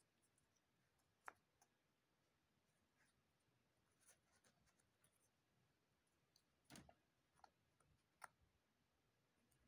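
Near silence broken by a few faint clicks and taps of cardboard jigsaw puzzle pieces being handled and pressed into place. The clearest come about a second in and in the last three seconds.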